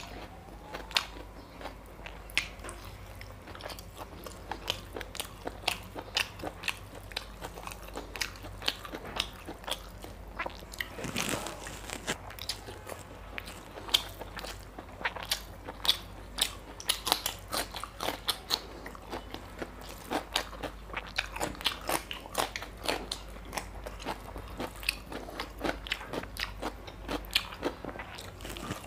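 Close-miked mouth sounds of a person eating mutton curry and rice by hand: chewing, biting and wet smacking clicks, several a second, with one longer, louder noise about eleven seconds in.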